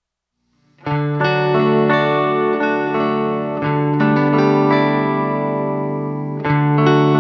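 Instrumental background music with sustained, effects-laden guitar chords, starting suddenly out of silence about a second in; a new chord comes in near the end.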